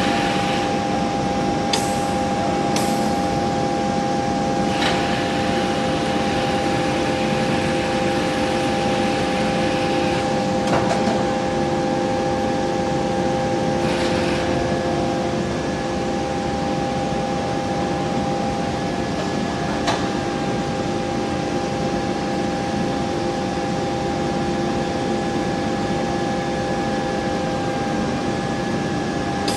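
Steady machine hum with two steady tones from a 1000 kW induction billet-heating furnace line running. A few sharp knocks sound over it, about two seconds in, near five seconds and around fourteen and twenty seconds.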